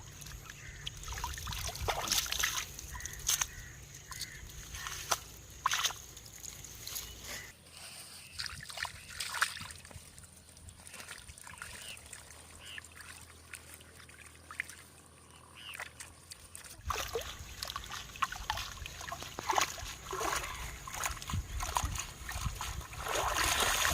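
Raw turmeric rhizomes being dunked and swished in water to wash off the soil, with irregular splashing and trickling. It is quieter for a stretch in the middle.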